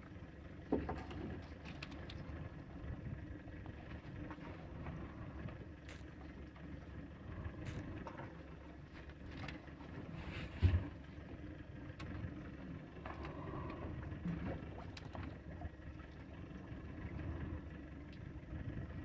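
Steady wind and water noise around a small open boat drifting at sea, with scattered light knocks and one louder thump about ten and a half seconds in.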